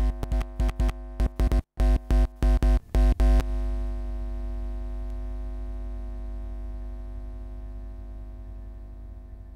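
Electronic music: a synthesizer chord cut rapidly on and off in an irregular stutter, then held from about three and a half seconds in and slowly fading away.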